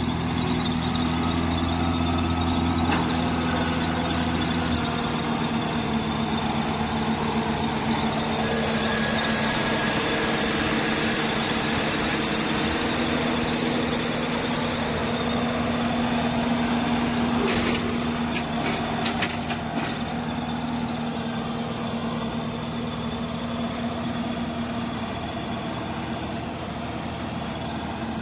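Goose GS1028E tracked rice combine harvester running steadily, a continuous engine drone with mechanical noise over it. A quick run of sharp clicks comes about two-thirds of the way through.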